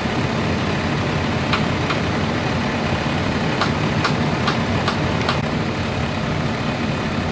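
A vehicle engine idling steadily with a low hum. A few sharp clicks or clinks come in the middle stretch.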